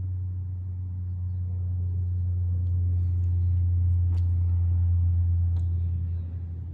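A steady low drone that swells a little toward the middle and eases off near the end, with a few faint ticks above it.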